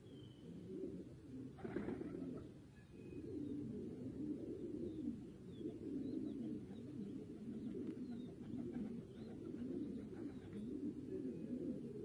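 Several domestic pigeons cooing over one another, a continuous low, wavering coo. A short noisy burst comes about two seconds in, and faint high chirps are scattered above the cooing.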